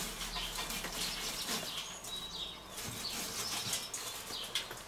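Faint rustling and light clinks of charcoal as fire starters are pushed in among the coals by hand. Birds chirp now and then in the background.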